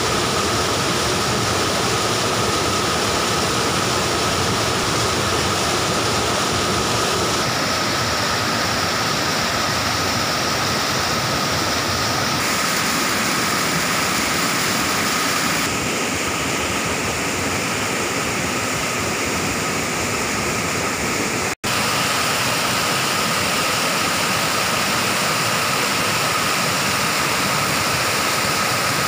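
Small waterfall and stream rushing over rocks into a pool: a loud, steady rush of falling water, its tone shifting slightly a few times, with a brief dropout about 22 seconds in.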